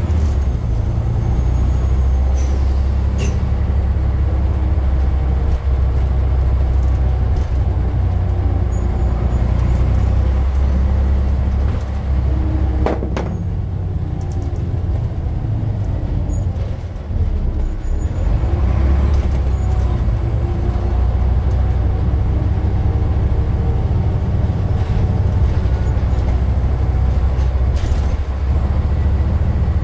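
Scania N94 bus's nine-litre five-cylinder diesel engine and drivetrain running under way, heard from inside the passenger saloon. Near the middle the engine eases off for a few seconds with a short hiss of air, then revs back up.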